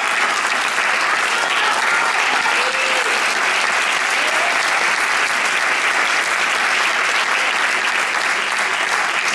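Theatre audience applauding steadily, a dense even clapping, with a few voices calling out over it.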